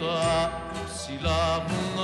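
A recorded song: a singer holds long notes with vibrato over instrumental backing with a bass line.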